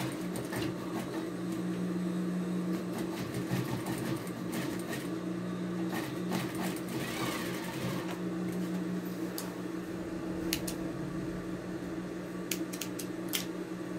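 Industrial sewing machine running and stitching, with a steady motor hum and a few sharp clicks near the end.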